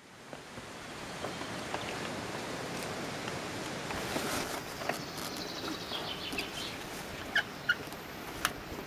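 Outdoor background noise fading in, a steady rush with scattered sharp knocks and a few short high-pitched calls, two of them close together about seven and a half seconds in.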